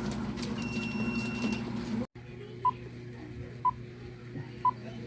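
Electronic beeps over a low background hum: one steady high beep lasting about a second, then after an abrupt cut, three short lower beeps a second apart followed by a single higher beep.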